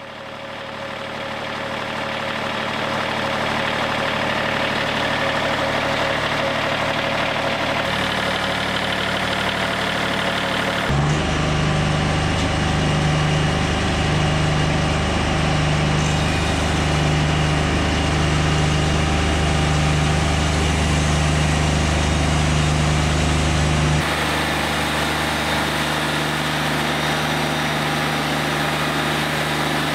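Wood-Mizer hydraulic bandsaw mill running steadily as its saw head takes the first skim cut along a pine log. The engine sound changes abruptly about 8, 11 and 24 seconds in, and a low tone pulses evenly between the second and third change.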